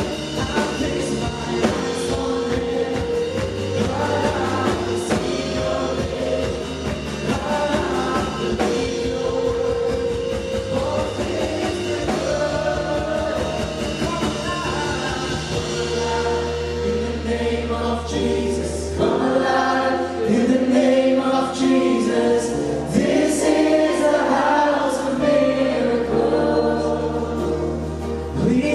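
Worship band playing a praise song, with a congregation and worship team singing along in chorus over a steady beat; a deep held bass note comes in about halfway through.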